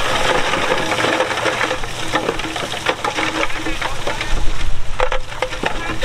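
Stone and steel clattering as heavy earthmoving machinery works rock: rapid, irregular knocks and clanks, with a louder cluster about four to five seconds in.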